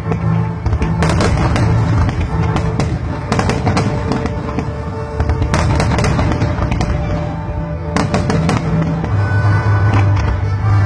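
Aerial fireworks shells bursting in quick, irregular succession, many bangs and crackles, over loud music with a steady bass line.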